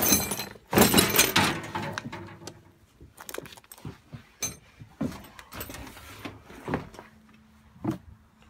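Metal tools clattering and clinking against each other and a shelf as they are rummaged through, loudest in the first two seconds, then scattered separate knocks and clicks.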